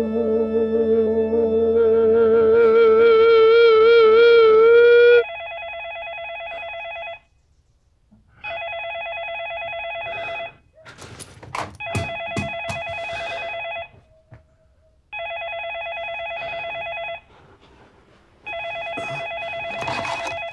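Sustained, wavering film-score tones that swell and cut off suddenly about five seconds in. Then a cordless telephone rings electronically, about two seconds on and a second and a half off, five times, with rustling and knocks between the rings.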